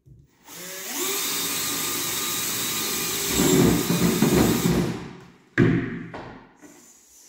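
Cordless drill spinning up and boring a hole through a cabinet's back panel: a steady motor whine that gets louder and rougher for about a second and a half in the middle, then winds down. A sharp knock just after the drill stops.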